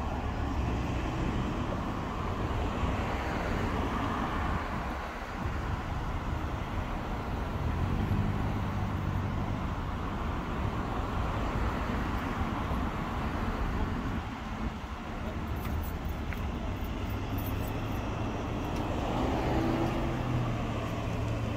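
Steady street traffic noise with a low, continuous engine hum.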